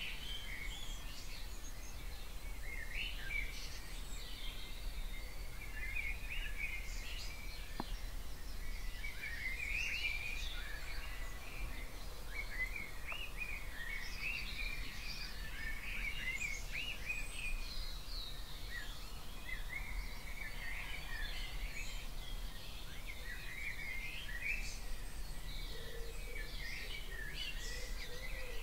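Dawn chorus: several songbirds singing at once, a dense run of overlapping chirps, trills and warbles, over a steady low background hum.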